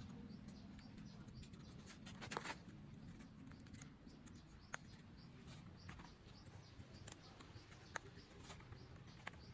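Near silence with low room hum and a few faint, sharp clicks and taps, as of a plastic toy gun being handled: a short cluster about two seconds in, then single clicks spaced a few seconds apart.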